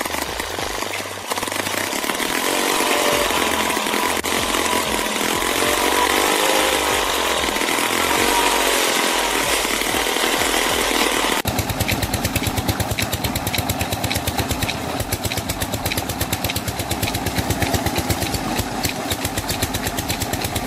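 Stationary diesel 'Peter' pump engine started up and running as it drives an irrigation water pump. From about halfway through it is a steady, rapid thudding beat.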